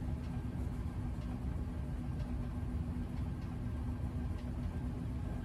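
Access Plate vibration plate running steadily with a person standing on it: a constant low rumble with a steady hum.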